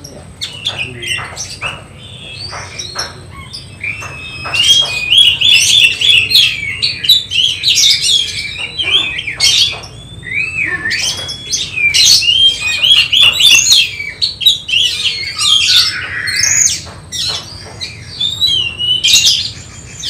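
Oriental magpie-robin (kacer) singing in its cage: a loud, varied song of fast repeated notes and swooping whistles, broken by many sharp clicks.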